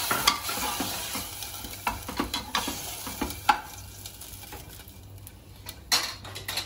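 Onion-and-spice masala frying in oil in a pressure cooker, its sizzle dying down over the first couple of seconds as a cup of water is added. A spoon stirs it and knocks sharply against the pot several times.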